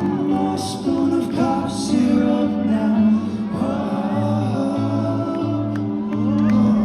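Live indie rock band playing, with sung vocals over a steady bass line.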